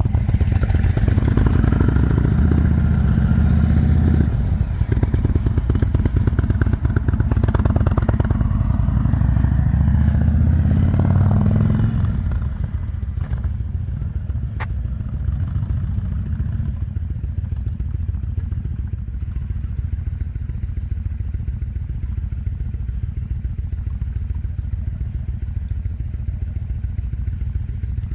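Indian Super Chief Limited's big air-cooled V-twin motorcycle engine running on a ride. Its revs climb twice in the first twelve seconds. About twelve seconds in it falls back to a quieter, steady running for the rest.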